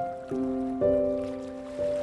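Slow, calm relaxation music: soft chords of held notes. A new note is struck about every half second to a second, and each one fades slowly until the next.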